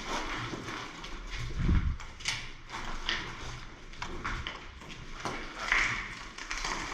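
Irregular footsteps and knocks of gear as a player moves on a hard floor, with one heavier low thump about a second and a half in.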